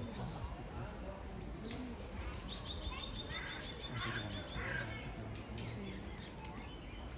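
Outdoor ambience of small birds chirping, with a quick run of high ticks about two and a half seconds in, over faint distant voices.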